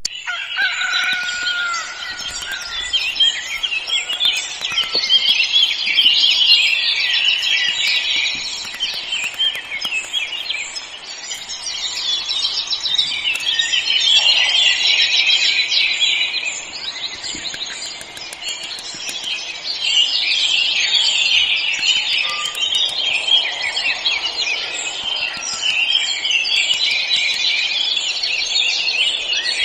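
A dense chorus of many small birds chirping, swelling and easing in waves every few seconds.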